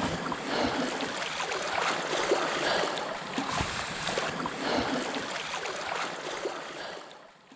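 Small sea waves lapping and splashing against shore rocks, a steady wash dotted with little splashes that fades out about seven seconds in.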